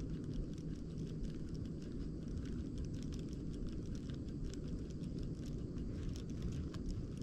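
Small spinning reel being cranked during a twitching lure retrieve: a run of light, irregular ticks over a steady low rumble.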